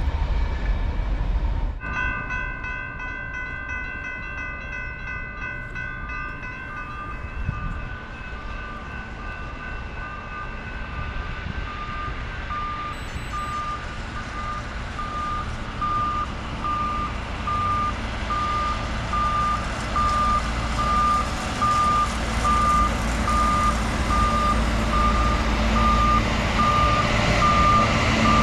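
Maintenance-of-way track machines running along the rails, a steady warning tone sounding and then changing to a regular high beep about once a second, with engine and rail rumble growing louder as they come closer.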